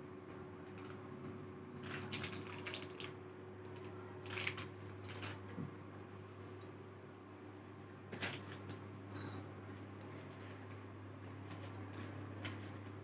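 Bangles on a wrist clinking and jingling in short scattered bursts as hands handle folded fabric and plastic wrapping, over a steady low hum.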